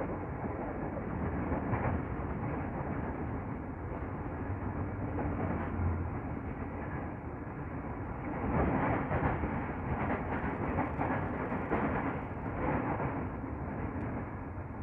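Steady running noise of a KRL Commuter Line electric train heard from inside the carriage while under way: a continuous rumble of wheels on rails, swelling somewhat louder now and then in the second half.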